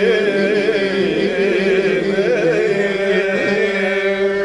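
A man singing Arabic folk verse unaccompanied, stretching a line into a long ornamented melisma. The pitch wavers and curls, then settles onto a steady held note near the end.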